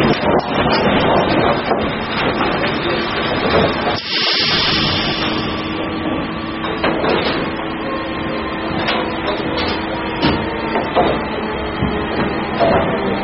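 Timber sorting and stacking line running: a steady machine hum under an irregular clatter of wooden boards knocking against each other and against the metal frames. The din breaks off briefly about four seconds in.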